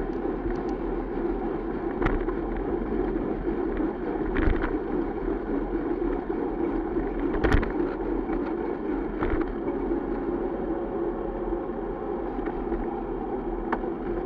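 Steady wind and road rumble on the microphone of a camera riding on a fast-moving mountain bike, with a few sharp knocks along the way.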